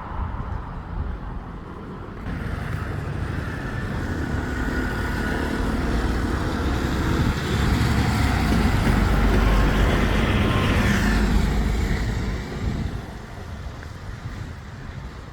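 Road traffic with a motor vehicle approaching and passing close by: the engine and tyre noise builds over several seconds, is loudest about eight to twelve seconds in, and drops away sharply soon after.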